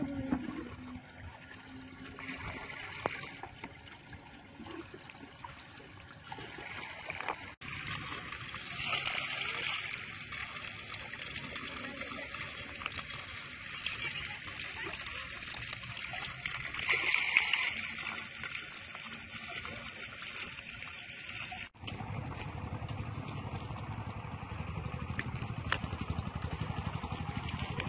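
Water splashing and sloshing in a shallow mud-walled trap pit as small puti barbs are scooped out by hand into a basket, with louder splashes about ten and seventeen seconds in. For the last few seconds the splashing gives way to a steady low rumble.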